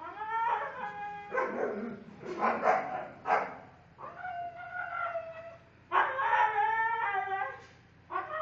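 Belgian Malinois puppy whining and crying in a series of drawn-out, high calls, one after another, rougher and more broken around the middle.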